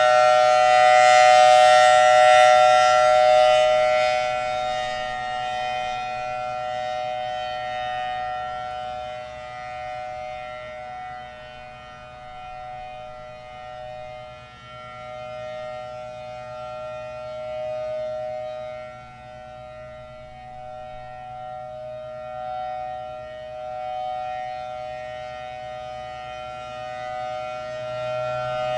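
Federal Signal Thunderbolt outdoor warning siren sounding a steady tone, not wailing. It is loudest at the start, fades through the middle and swells again near the end. It sounds worn, which the recordist takes for too little air from its later C-series blower reaching the chopper, perhaps because the head is not properly bolted to the flange.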